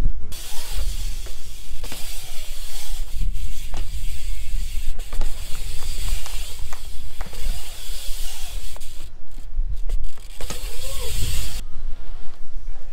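BMX bike riding a concrete skatepark bowl: tyres hissing over the concrete with scattered sharp clacks from landings and wheel knocks, over a heavy rumble of wind on the microphone. The tyre hiss cuts off abruptly near the end.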